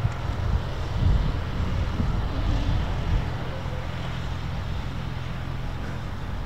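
Aircraft tow tractor's engine running steadily as it tows a Spitfire on a towbar, a low hum that is a little louder and uneven in the first three seconds.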